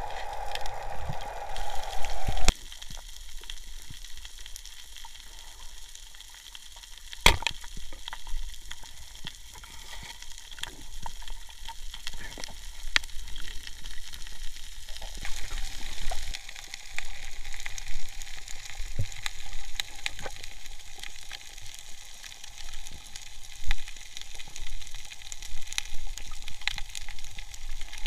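Underwater ambience on a night dive: a steady crackling hiss with many scattered sharp clicks, one louder click about seven seconds in. A louder rushing noise at the start stops abruptly about two and a half seconds in.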